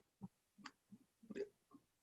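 Near silence with a few faint, short mouth sounds: a person gulping down air to work up a burp.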